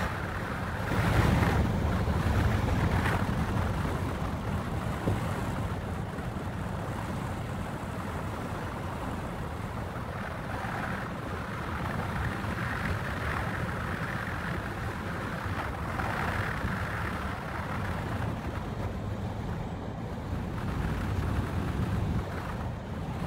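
Wind rushing through an open car window and buffeting the microphone, over the low rumble of the car driving along. It swells louder about a second in, then settles to a steady rush.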